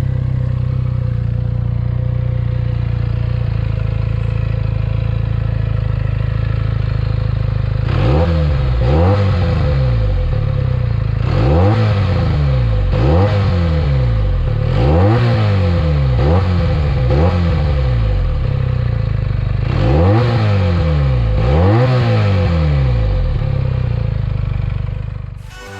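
Benelli 302S 300 cc parallel-twin engine and exhaust running steadily, then revved in a series of quick throttle blips, often in pairs, the pitch shooting up and falling back each time.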